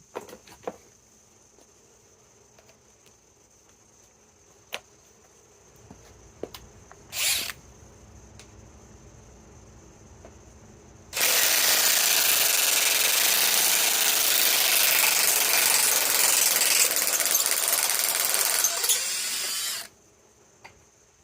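RIDGID R8721 cordless 1/2-inch right-angle impact wrench hammering for about eight and a half seconds, backing fasteners out of a workbench, before stopping abruptly. Earlier there is a brief blip of the tool and a few light clicks.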